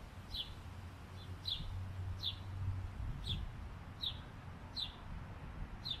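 Repeated sharp chip call, seven short, quickly falling high notes evenly spaced about one a second, from a small animal calling out of view.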